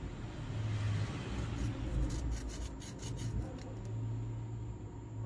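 A metal hand tool scraping and rubbing along the edge of a phone's frame, in a run of short scratchy strokes, over a steady low hum.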